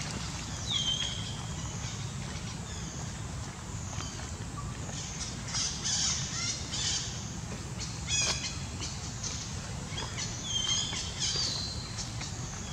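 Birds calling and chirping: short high calls that drop in pitch and then level off, one near the start and two near the end, with bursts of chirps in the middle and a quick run of ticks about eight seconds in, over a steady low background rumble.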